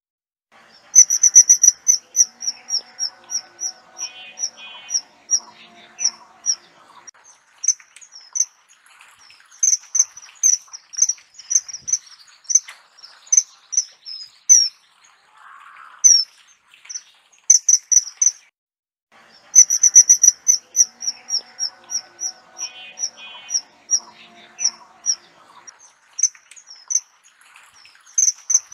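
A kingfisher giving rapid series of shrill, high whistled calls, several a second, over fainter chirps of other birds and insects. The calls break off briefly about two-thirds through, then the same run of calls starts over.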